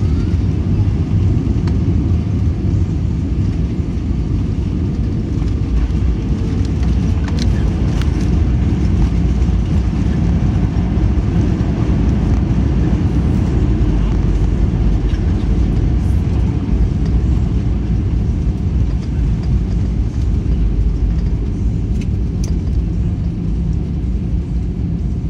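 Airbus A320 on its landing roll-out, heard from the cabin: a loud, steady low rumble of the engines and the tyres on the runway, easing slightly near the end.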